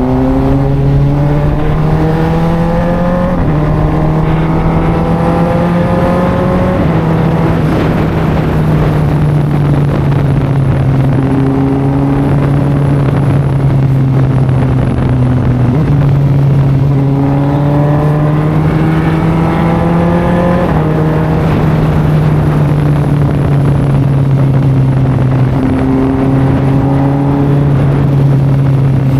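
Kawasaki Ninja ZX-4RR's 399 cc inline-four through an SC Project exhaust, pulling up through the gears. Its pitch climbs and drops at each upshift several times, with steady cruising stretches between.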